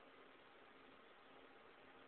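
Near silence: a faint, steady hiss of room tone with a faint steady hum.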